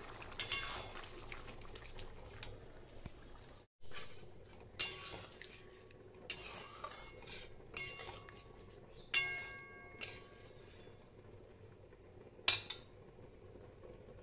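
A spatula stirring thick chicken curry in a metal pan, knocking against the pan about seven times with sharp clinks that ring briefly.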